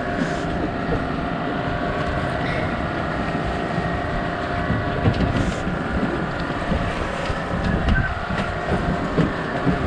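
A small wooden fishing boat's engine running steadily, a dense low rumble with a steady hum over it.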